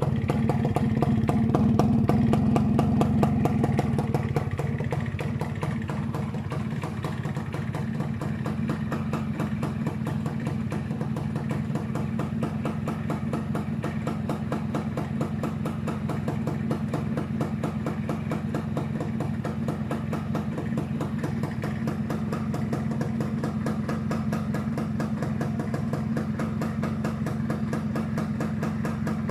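Restored 1991 Yamaha SS110's two-stroke single-cylinder engine running on the stand. It runs a little faster for the first few seconds, then settles to a steady idle.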